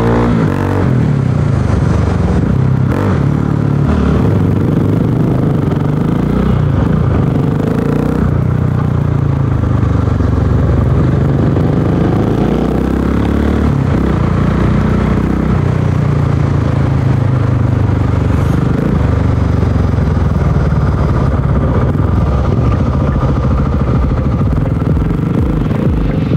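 Supermoto motorcycle engine heard from on board while riding, its pitch climbing and dropping again and again as it accelerates and changes gear.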